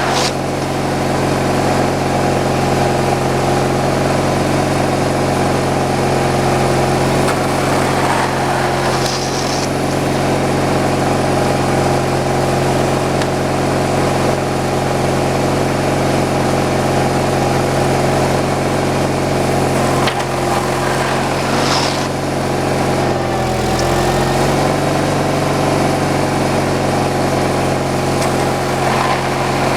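Engine of a kindling-cutting machine for sawmill slab trims running steadily, with a brief dip in pitch a little past the middle and a few short knocks from the wood being handled.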